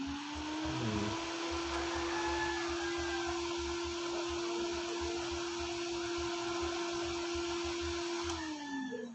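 Incubator circulation fan (220 V), switched on by the thermostat, spinning up with a rising hum and a rush of air, running steadily, then winding down with a falling hum near the end.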